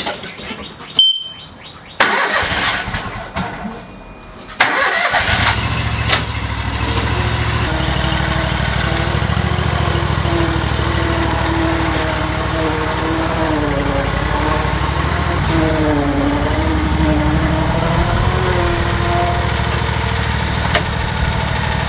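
Zero-turn mower engine starting with a sudden onset about four and a half seconds in, after a few clanks and rattles, then running steadily, its pitch wavering and dipping now and then.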